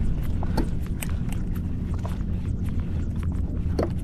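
A baitcasting reel and rod clicking irregularly, about three light clicks a second, as a lure is twitched and reeled in slowly, over a steady low rumble.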